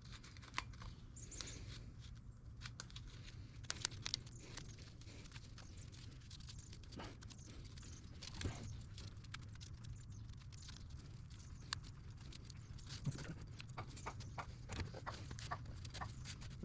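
Scattered light clicks and taps of work-bench handling, irregular and a few seconds apart, over a steady low hum.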